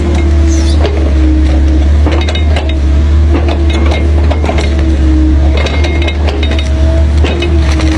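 Excavator working: a steady low diesel engine rumble with a whining tone above it, and many sharp metallic clinks and knocks scattered through.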